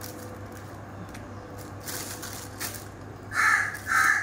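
Thin plastic shopper bags crinkling faintly as meat is packed into them, over a low steady hum. Near the end a crow caws loudly twice.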